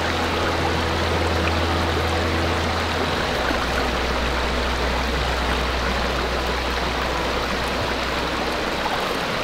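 Rushing water of a stream, a steady, even rush.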